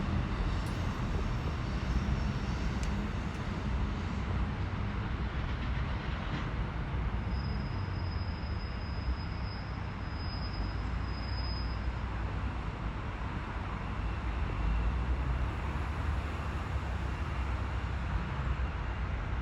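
Train running through the station with a steady rumble. A faint, high-pitched tone sounds in three short pieces around the middle.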